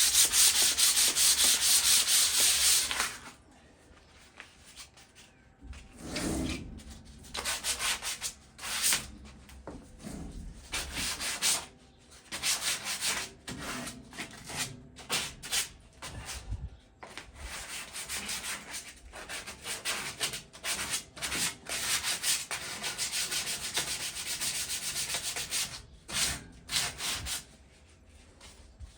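Sandpaper rubbed by hand over a rusty metal patio chair in quick strokes, scouring off surface rust. Loudest for the first three seconds, then after a short pause it comes in shorter, quieter spells of strokes that die down near the end.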